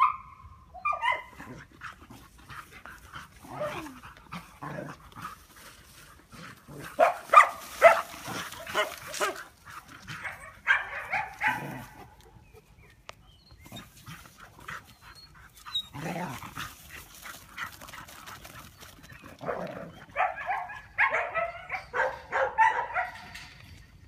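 Dogs barking in scattered bursts of short, sharp calls, with quieter stretches between them.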